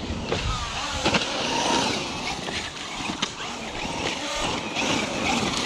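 RC car driving on a dirt track: its electric motor whines up and down in pitch as the throttle is worked, over steady tyre and dirt noise, with a few sharp clicks or knocks.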